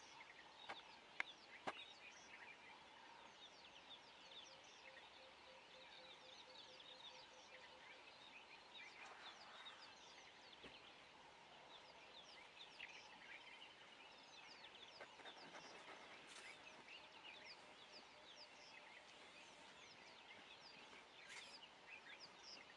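Faint, high-pitched chirping and twittering calls scattered throughout, over a quiet outdoor background, with a few sharp clicks in the first two seconds.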